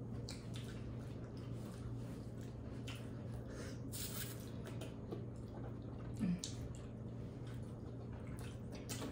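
Wet, squishy eating sounds of seafood boil being chewed and handled: scattered small smacks and clicks, with a short low vocal sound about six seconds in.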